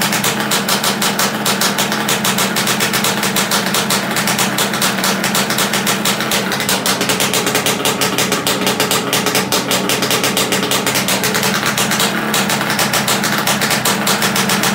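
Single-cylinder two-stroke Bultaco engine running steadily at about 2,400 rpm, a fast even run of firing pulses.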